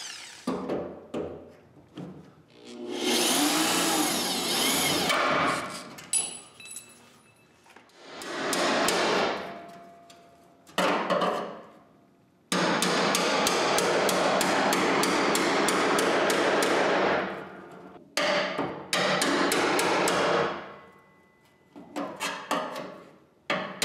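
Sheet-steel cutting on the Jeep's rear wheel well: short bursts of an electric drill spinning up and down, then long stretches of rapid, continuous chisel hammering on the steel seam, stopping and starting several times.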